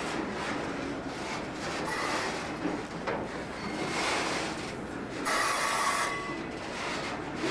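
Freight flatcars creeping past on slow track, their steel wheels grinding and scraping on the rails, with a short high wheel squeal about five seconds in.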